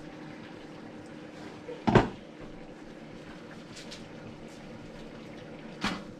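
A glass saucepan lid set down with a sharp clatter about two seconds in, then a smaller knock near the end, over a steady low hum.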